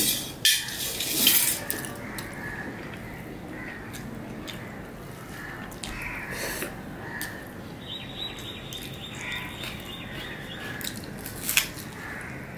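Hand-eating of mutton kacchi biryani: quiet chewing and mouth sounds, opening with a clatter and splash as fingers are rinsed in a small steel bowl of water. Birds call repeatedly in the background, and there is a sharp click near the end.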